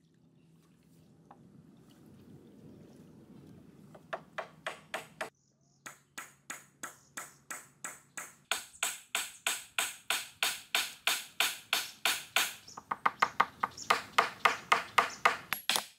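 Rapid, evenly paced strikes of a hand tool, each with a ringing, metallic edge, about three a second and growing louder, starting about four seconds in after a faint low rumble.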